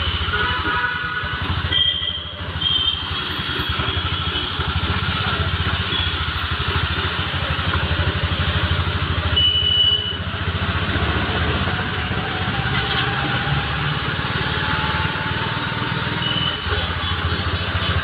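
A motor vehicle's engine running steadily with a fast low throb, under an even hiss of rain. A few brief high tones cut through near the start, in the middle and near the end.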